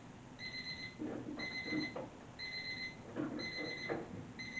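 Digital timer alarm beeping, a short high beep once a second, five times: the timed interval has run out. Softer, duller noises come between some of the beeps.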